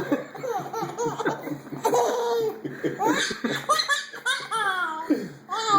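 A baby laughing hard at a sneeze: a rapid string of short laughs, then longer laughs that fall in pitch about four to five seconds in.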